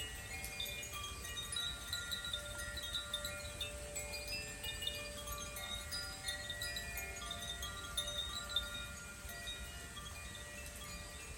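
Handheld tuned wind chimes being played, ringing a continuous cluster of overlapping bell-like tones at many pitches that sustain and fade into one another.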